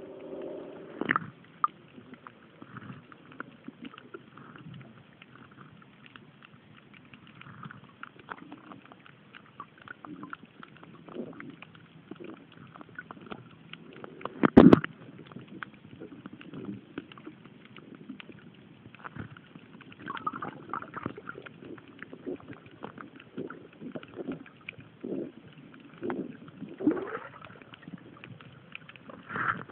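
Muffled underwater sound with the microphone below the surface: gurgling and bubbling, scattered clicks and knocks, and one much louder knock about halfway through.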